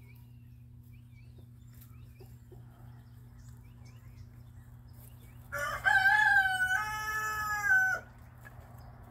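A rooster crowing once, one loud call of about two and a half seconds that starts with a short rising note and then holds in a few steps before cutting off. Faint small-bird chirps come before it over a low steady hum.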